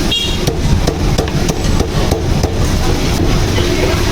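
A cleaver chopping on a wooden block: a run of sharp, irregular knocks, two or three a second, over steady market bustle.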